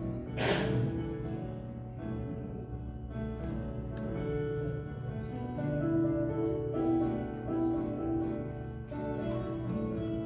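Instrumental music with long held notes. A short loud rush of noise cuts across it about half a second in.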